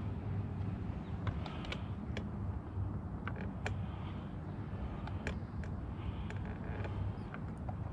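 Fishing reel being cranked on a retrieve, giving scattered light clicks and ticks at irregular intervals, over a steady low hum.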